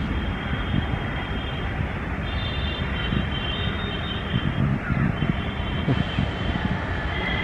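Indian Railways WAP-4 electric locomotive hauling an express at low speed: a steady low rumble with a thin high whine above it.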